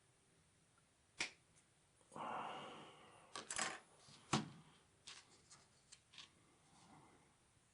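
Small plastic model-kit parts being snipped off the sprue and handled: a series of faint sharp clicks and taps, the loudest about four seconds in, with a short rustle about two seconds in.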